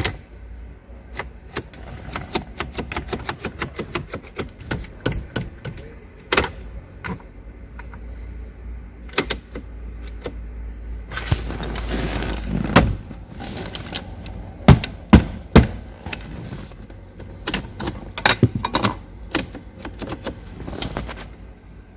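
Irregular clicks and knocks, with a denser noisy stretch about halfway through and a few louder knocks just after.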